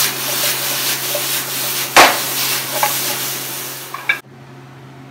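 Bell pepper pieces sizzling in hot oil in a frying pan as they are tossed, with one loud sharp clack about two seconds in. The sizzle cuts off suddenly about four seconds in as the pan is lifted off the gas burner, leaving a much quieter steady background.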